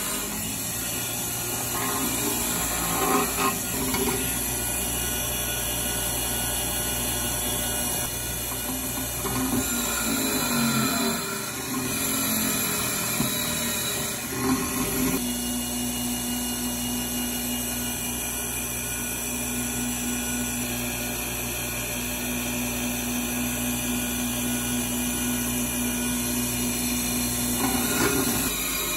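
Bench grinder running with a wire wheel scrubbing rust off the steel toothed hook jaw of an old Ridgid pipe wrench: a steady motor hum under a scratching hiss that changes as the jaw is pressed and moved against the wheel, turning steadier about halfway through.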